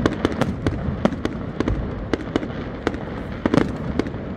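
Fireworks display: aerial shells bursting in an irregular string of sharp bangs and cracks, several a second, over a continuous background of noise.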